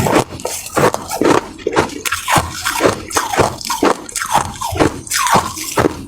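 Ice being bitten and crunched right at the microphone, a rapid irregular run of sharp crunches a few times a second, with wet, drip-like mouth sounds between them.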